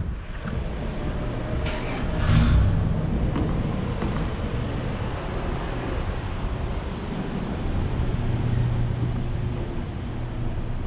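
Engine rumble and road noise of a vehicle driving slowly, heard from on board, with a louder swell about two seconds in.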